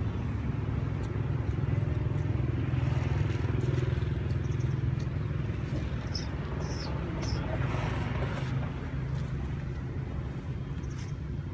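Steady low rumble of a motor vehicle engine, fading slightly near the end, with a few faint high chirps about six to seven seconds in.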